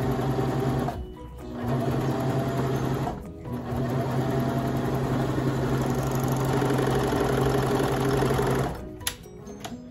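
Baby Lock Vibrant serger stitching a seam through fabric, running in spurts: it stops briefly about a second in and again around three seconds in, then runs steadily until it stops near the end. A few light clicks follow.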